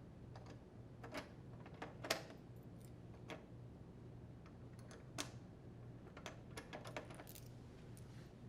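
Faint, irregular light clicks and taps of screws and plastic parts being handled and set while screws are driven by hand into a dryer door's latch and hinge bracket. The sharpest click comes about two seconds in, with a quick cluster of clicks later on, over a faint steady hum.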